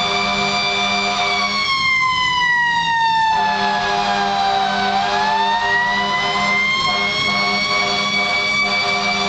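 Fire engine siren wailing: a steady high tone that slides slowly down over a few seconds and then climbs back up. A steady low drone runs beneath it and drops out briefly early on.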